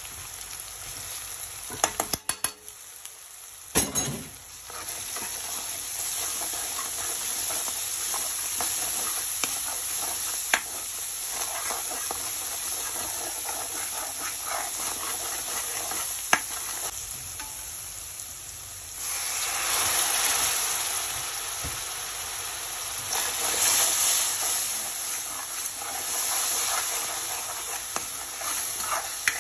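Saag, garlic and spices frying in oil in a kadai on high flame, sizzling steadily while a spoon stirs them, with a few sharp knocks of the spoon against the pan. The sizzle swells louder twice in the second half.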